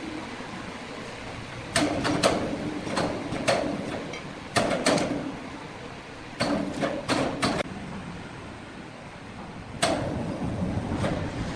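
Irregular clusters of hard knocks, each followed by a short ringing note, over a steady machinery hum, typical of timber being handled and knocked together in a sawmill.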